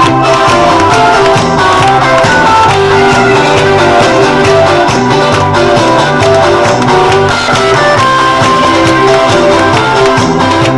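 Loud music with guitar over a steady, repeating bass line.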